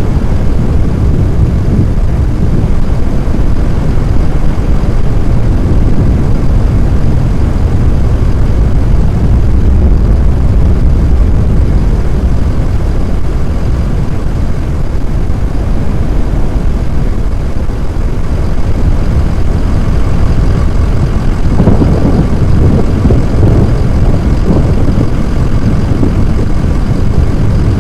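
Loud, steady low rumbling noise, with a rougher, crackling stretch near the end.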